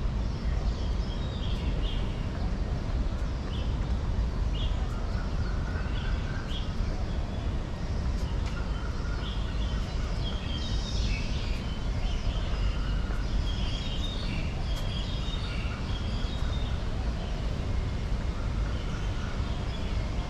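Birds chirping, many short repeated calls, growing busier after about six seconds, over a steady low rumble.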